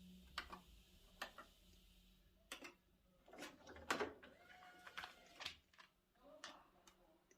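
Soft mechanical clicks and clunks, about eight at irregular intervals, from hi-fi equipment being handled: a CD player and a cassette deck.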